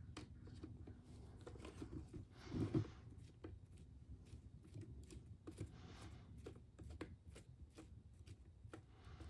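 Light, scattered clicks and taps of small hand tools and plastic parts being handled on a Traxxas Slash 4x4 RC truck, with a louder rustle and knock about two and a half seconds in.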